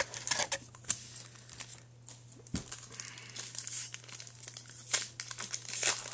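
Trading card pack wrapper being crinkled and torn open by hand, in irregular crackles that are thickest at the start and again near the end.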